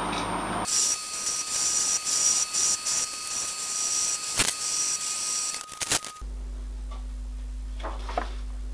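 Metal lathe cutting a slim metal rod: a steady high hiss of the cut with a thin steady whine, and two sharp clicks near the middle. About six seconds in the machining stops, leaving a low electrical hum.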